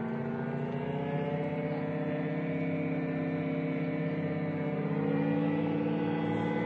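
Outboard motor of an inflatable boat on the river, a steady drone of several held tones that steps up a little in pitch about five seconds in.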